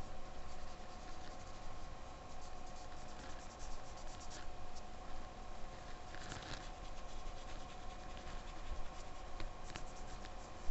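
A white pastel stick scratching and rubbing on drawing paper as highlights are laid over the coloured layers, faint and dry, in short spells of strokes.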